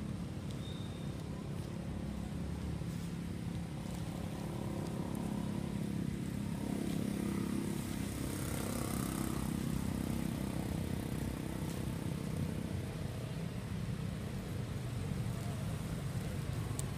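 Steady low rumble of a vehicle engine that swells a little around the middle, as if a vehicle is drawing near.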